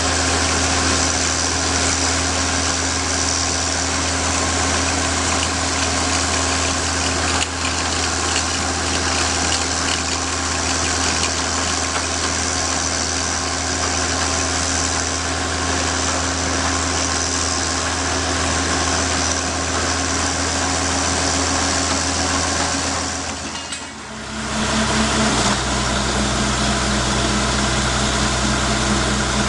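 Geothermal borehole drilling rig running steadily: a constant engine hum under a broad hiss. The sound dips briefly about four-fifths of the way through, then carries on with a slightly different tone.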